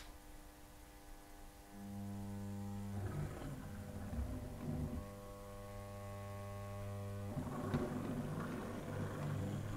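Hornby 00 gauge GWR 0-4-0 model locomotive's small electric motor humming as it crawls along the track at low speed, a steady buzzing hum that starts about two seconds in and shifts a couple of times. Over the last two seconds it turns rougher and rattly as the loco passes close; at this slow speed it stutters a little.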